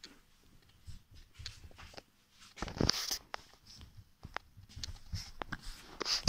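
A Rottweiler puppy scrabbling about on a bedsheet and fleece blanket: scattered soft rustles and paw scratches. There is a louder rustle about three seconds in.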